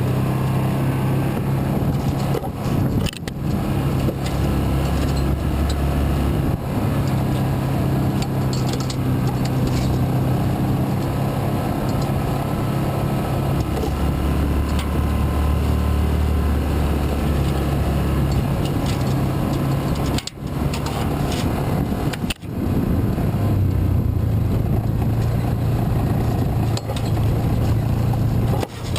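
Yamaha Rhino side-by-side's engine running steadily while driving along a bumpy dirt trail, its hum shifting in pitch with the throttle, with scattered knocks and rattles from the vehicle. The sound drops out briefly a few times, about 20 and 22 seconds in.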